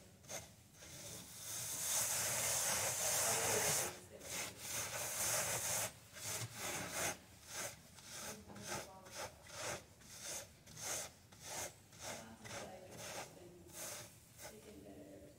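Gloved hand rubbing dried mad dog skullcap seed heads against a wooden-framed seed-cleaning screen, breaking down the chaff to free the seeds: a dry, scratchy rasp. It runs near-continuously for the first several seconds, then breaks into separate strokes about two a second that fade toward the end.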